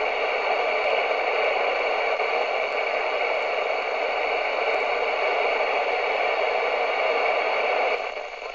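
FM radio receiver hissing with static on the CB freeband between transmissions. The hiss drops somewhat near the end.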